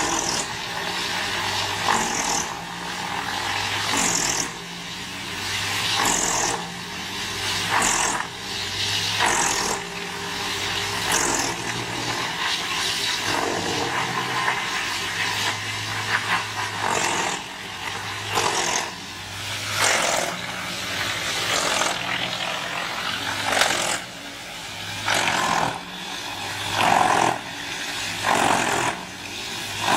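A large wood chipper running under load: a steady engine drone that swells and eases, with irregular sharp cracks and crunches every second or two as wood is chipped.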